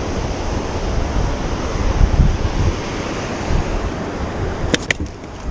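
Ocean surf washing on the beach, with wind buffeting the microphone in low rumbling gusts. Two sharp clicks near the end.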